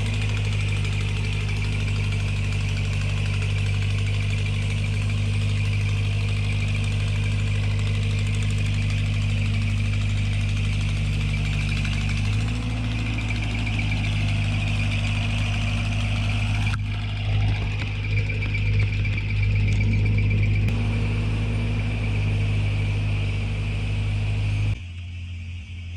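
Engine running steadily, its note shifting slightly about halfway through, then cut off suddenly near the end.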